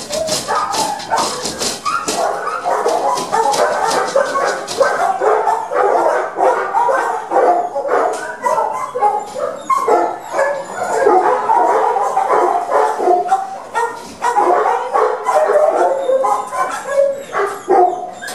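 Many shelter dogs in kennels barking and yipping at once, a loud continuous chorus of overlapping barks. This is the excitement dogs show when walkers arrive.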